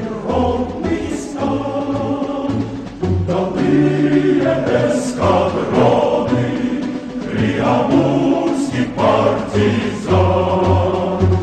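Choir singing over instrumental music with a pulsing bass line.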